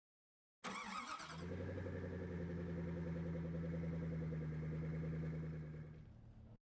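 An engine starts with a brief rough burst and settles into a steady low idle, then the sound cuts off abruptly.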